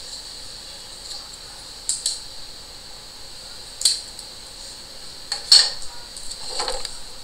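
Paper template sheets and a small roll of clear tape being handled on a table: a handful of short rustles and clicks, the loudest about five and a half seconds in, over a steady faint hiss.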